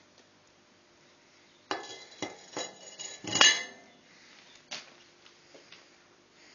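A heavy metal lid clanking against the top of a rocket stove as it is set down over the fire, about five clanks in quick succession with the loudest near the end of the run, then a single lighter knock.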